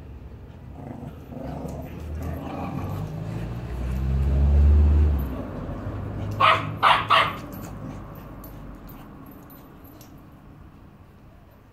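A Staffordshire Bull Terrier and a Border Terrier puppy play-fighting: low growling that builds and grows louder, then three quick barks in a row a little past the middle.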